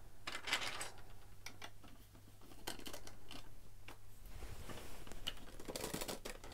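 Plastic LEGO bricks clicking and clattering as they are handled and pressed onto a brick-built arch: a string of small sharp clicks, busiest about half a second in and again near the end.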